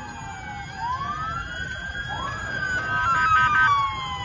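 Several emergency-vehicle sirens wailing at once, their pitches sliding up and down and overlapping. About three seconds in, one switches to a fast warble, the loudest part.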